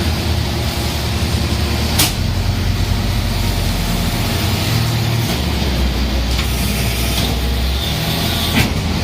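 Corn silage bagging baler running: a steady machine drone with a low hum that changes pitch about five seconds in, and two sharp clicks, one about two seconds in and one near the end.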